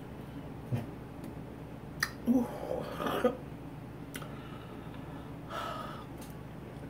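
A woman blowing out and gasping through her mouth twice, about two seconds in and again near the end, from the burn of hot sauce. A few faint clicks come between.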